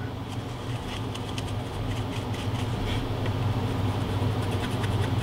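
Steady low hum of a household furnace running, with faint scratching from a paintbrush being scrubbed and wiped on a paper towel.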